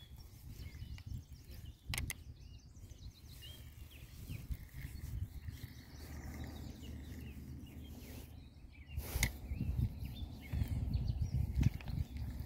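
Open-air background: a steady low rumble, faint bird chirps, and two sharp clicks, about two seconds in and about nine seconds in.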